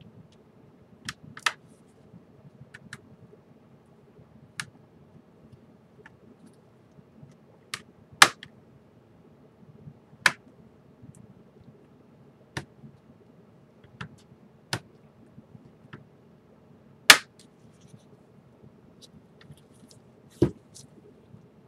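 Plastic clips of a Samsung Galaxy Note Pro 12.2 tablet's back cover popping loose as an opening pick is worked around the edge: about a dozen sharp, irregular clicks, a few much louder than the rest, over a faint steady hum.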